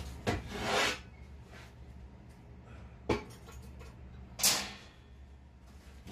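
A few short scrapes and a sharp click from handling on a steel workbench, over a low steady hum.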